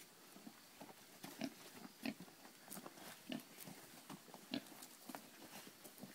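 Domestic pigs giving short, faint grunts at irregular intervals, a second or so apart.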